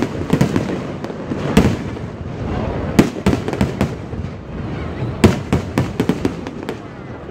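Fireworks display: aerial shells bursting in irregular booms over a low rumble. Sharp bangs come about one and a half, three and five seconds in, followed by a quick run of crackling reports.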